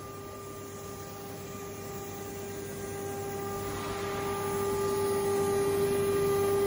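Woodworking CNC router spindle carving an MDF sheet on a vacuum table: a steady whine over the noise of the bit cutting, growing steadily louder.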